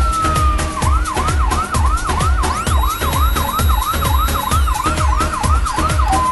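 Electronic dance remix with a police-style siren effect over a steady kick-drum beat: a slow wail falling away, then about 0.8 s in switching to a fast yelp of about three sweeps a second that stops near the end.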